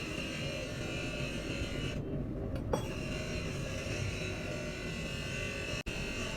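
A small electric motor running with a steady whir and a whining tone.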